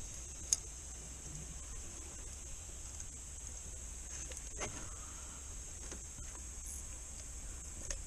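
Steady high-pitched insect chorus, with a low rumble underneath. A single sharp click sounds about half a second in, and a few faint knocks come about halfway through.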